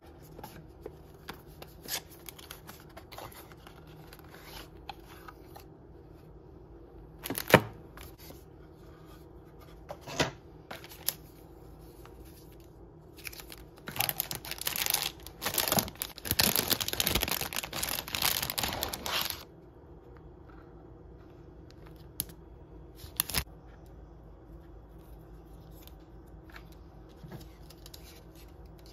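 Unboxing and packaging-handling noises: cardboard box flaps and inserts handled, with scattered taps and clicks and one sharp knock a little before the middle. Partway through comes a stretch of about five seconds of crinkling as the foil anti-static bag holding the LED strip is handled.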